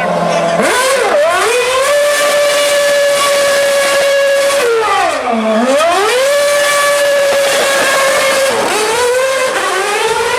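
Formula 1 car engine held at high, steady revs with a high-pitched whine. The revs swoop down and climb straight back about halfway through, dip once more, and rise again near the end.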